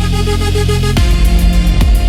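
Electronic ambient music: held synth tones over a deep bass, with a heavier, pulsing bass line coming in about a second in.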